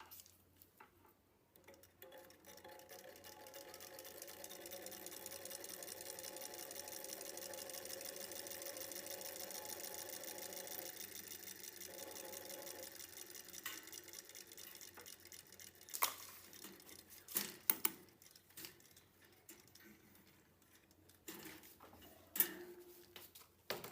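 A small electric motor runs faintly and steadily with a fast, even ticking, then dies away about halfway through. A few sharp clicks and knocks follow.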